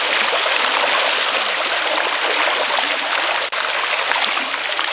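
Shallow creek rushing over a gravel riffle: a steady rush of water, briefly cut off about three and a half seconds in.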